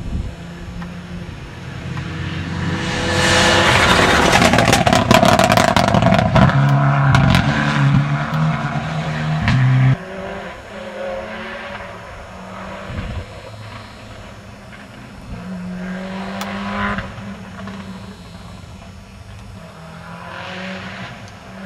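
Rally car engine at full throttle passing close, its revs climbing and dropping in steps through gear changes, with sharp crackles over it. After a sudden drop about ten seconds in, a rally car is heard further off, its engine rising and falling through gear changes.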